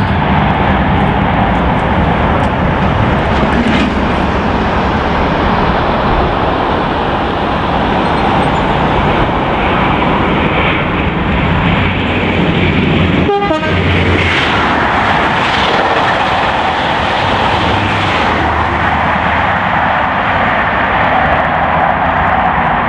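Steam locomotive 60163 Tornado, a three-cylinder A1 Pacific, running with its train: a loud, steady rush of train noise that drops out for a moment about halfway through.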